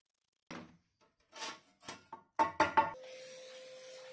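A thin drilled metal sheet knocks and clatters on its base as it is handled, with the loudest knocks a little over two seconds in. About three seconds in, a vacuum cleaner switches on and runs steadily.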